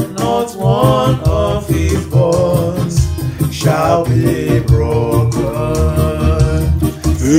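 A man singing a slow sacred melody, accompanying himself on an electronic keyboard.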